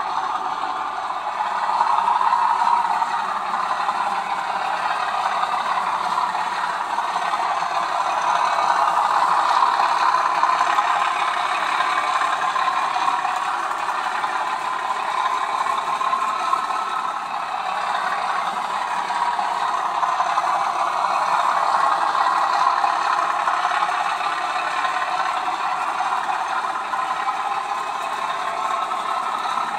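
Model railway freight train of Hornby tank wagons running along the layout track. It makes a continuous mechanical running noise that rises and falls a little in loudness as it goes round.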